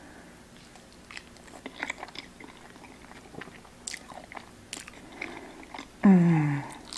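Close-miked eating: soft wet smacks and clicks as a mouthful of creamy pasta noodles is bitten off and chewed. About six seconds in comes a loud "mmm" hum of enjoyment, falling in pitch.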